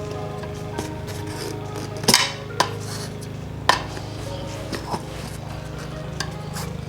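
Metal tire irons clinking and scraping against the wheel rim as a dirt bike tire bead is pried on by hand, several sharp clinks, the loudest about two seconds in.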